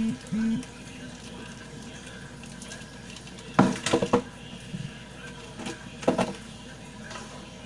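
Small hard objects clinking and clattering on a work surface, in two short clusters separated by a couple of seconds, after two brief hummed voice sounds at the start.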